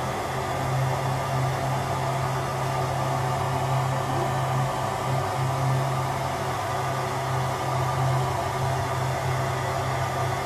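Ambience inside a moving train's toilet compartment: a steady low hum with a wavering drone and an even rushing hiss from the running train.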